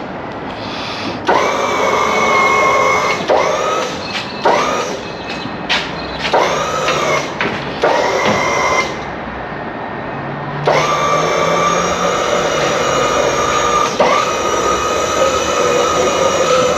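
A small electric motor whining in several short runs of a second or two, each spinning up with a rising pitch and stopping suddenly, then a longer steady run from about eleven seconds in.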